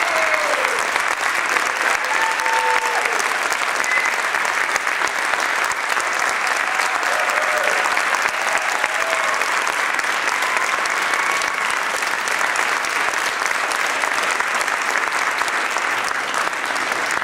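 Audience applauding steadily, with a few short cheers rising above the clapping in the first half.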